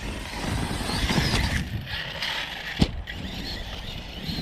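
Arrma 6S RC car's drivetrain running with a crunchy grinding from inside, the sign of something chewed up in the gears, with one sharp click about two-thirds of the way through.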